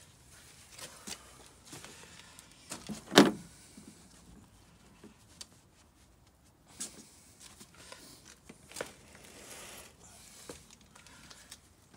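Scattered clicks and light knocks of a sealant gun and hands working over sunroof trim, with one sharper, louder knock about three seconds in.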